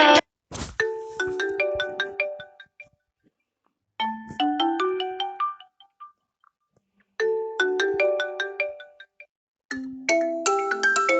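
Built-in Honor smartphone ringtones playing one after another: a louder tune cuts off at the start, then short melodic phrases of ringing notes with pauses between them, and a busier tune begins near the end.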